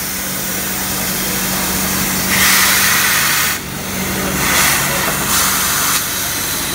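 Compressed air hissing from a shop air hose's chuck into a truck air-suspension airbag, inflating it to lift the frame off the axle. There is one long burst a little over two seconds in, then two shorter bursts, over a steady shop hum.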